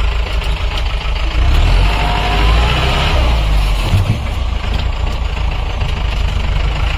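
Vehicle engine running with a heavy, steady low rumble.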